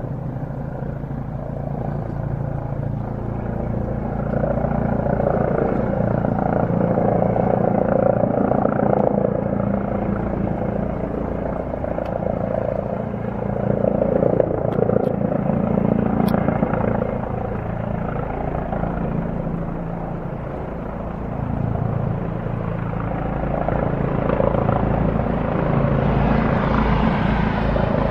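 Helicopter's rotor and turbine running as it comes in to land, a steady low rotor beat under a whine. It swells a few seconds in, eases off for a while in the middle, and grows louder again near the end.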